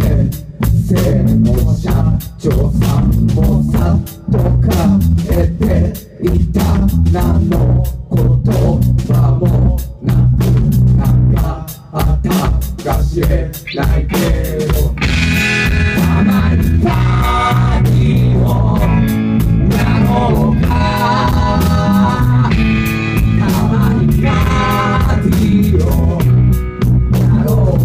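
Live rock band playing electric guitar, electric bass and drum kit with a steady beat; a higher melody line comes in about halfway through.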